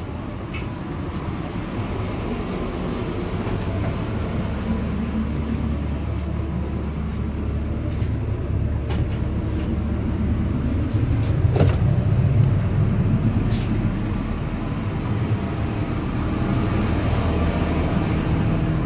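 Diesel railcar's engine idling with a steady low hum, heard inside the standing passenger compartment, with a few short clicks and knocks about halfway through.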